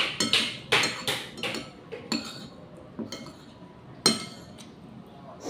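Metal spoon clinking and scraping against a ceramic plate while eating: a quick run of clinks in the first second and a half, then single clinks about a second apart, the loudest about four seconds in.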